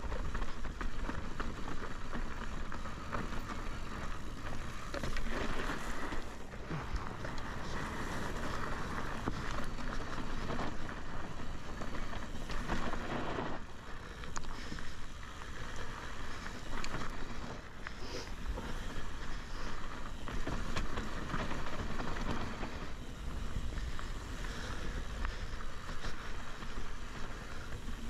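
Mountain bike riding fast down a loose, rocky dirt trail: steady crunch of the tyres over gravel and stones, with many small clicks and rattles from the bike, under a low rumble of wind buffeting the action camera's microphone.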